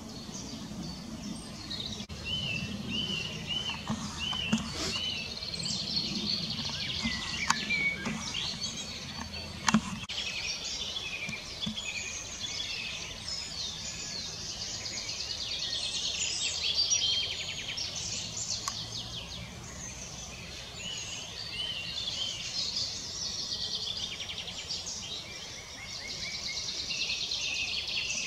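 Songbirds singing and calling all around, with a run of short, evenly repeated notes a few seconds in and a few sharp clicks in the first ten seconds.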